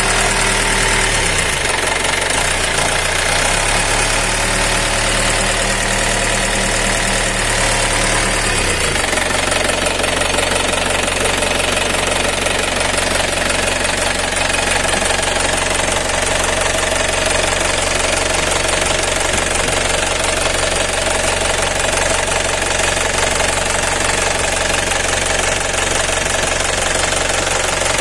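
Swaraj Mazda truck diesel engine running steadily with its rocker cover off, the exposed rocker arms and valves clicking and clattering over the engine's knock. The engine note shifts briefly about a second in and again near nine seconds.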